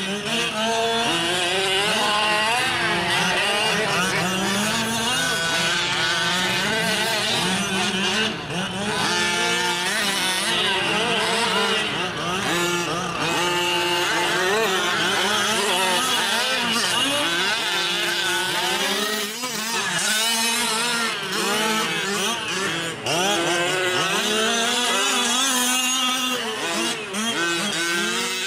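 Several 1/5-scale gas RC trucks' small two-stroke engines buzzing together, their pitch rising and falling without pause as the throttles open and close around the track.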